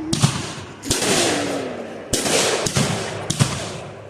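Fireworks going off in quick succession: about five sharp bangs in four seconds, each trailing off before the next.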